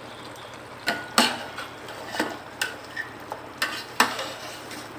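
A slotted steel spoon stirs chunks of beef in a large stainless-steel pot, scraping and clanking against the metal in a run of strokes from about one to four seconds in. The meat and oil sizzle steadily underneath.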